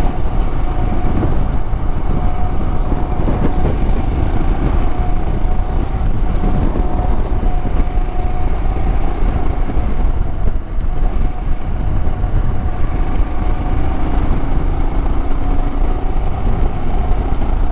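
Motorcycle riding along at steady speed: a heavy rush of wind noise on the microphone with the engine's steady drone beneath it.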